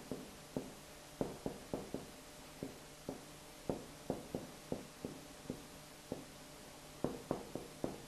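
Marker writing on a whiteboard: a faint series of short, irregular taps, about two or three a second, with a quicker run of them about seven seconds in.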